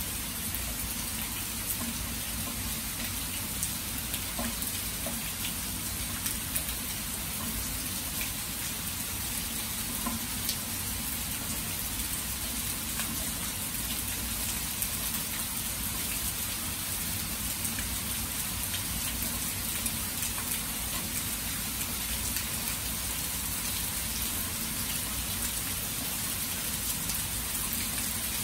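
Rain falling steadily: an even hiss with scattered sharp drop ticks throughout.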